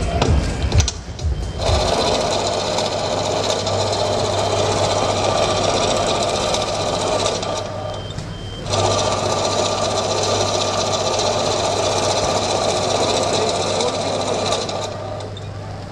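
A steady mechanical whirring over a constant low hum, cutting out briefly twice.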